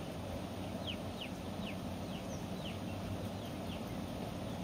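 A bird calling repeatedly: a run of short, high notes that each slide downward, about two a second, fewer near the end, over a steady low background rush.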